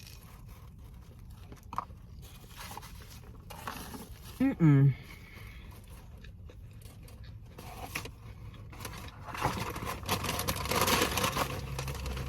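Close-up eating sounds: biting into and chewing a McDonald's chicken Big Mac. A short hummed "mm" with a rising and falling pitch comes about four and a half seconds in. The crunchy chewing and rustling grow louder in the last few seconds.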